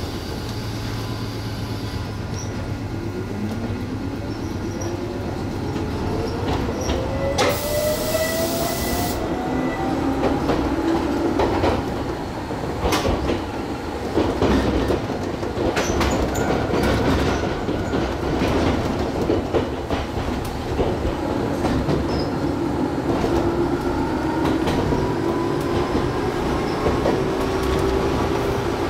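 Gakunan Railway electric train pulling away: the traction motor whine rises steadily in pitch over several seconds as it accelerates, with the wheels clicking over rail joints and a brief hiss about a quarter of the way in. Later a second rising whine as it picks up speed again.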